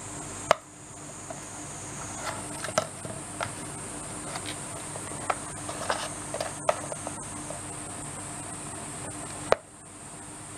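Shiba Inu nibbling and mouthing a cardboard plastic-wrap tube: scattered small clicks and scrapes over a steady high hiss, with a sharp knock about half a second in and another near the end.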